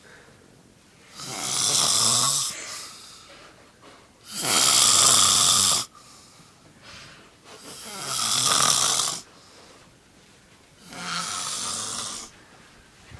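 A person snoring loudly: four long snores about three seconds apart, with quiet breathing between them.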